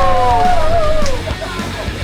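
Music: a long held sung note slides downward and falls away about a second in, leaving quieter music underneath.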